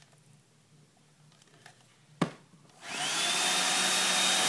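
A click about two seconds in, then a Philips Style Air hair dryer starts up: its motor whine rises quickly to a steady high pitch over the steady rush of its air.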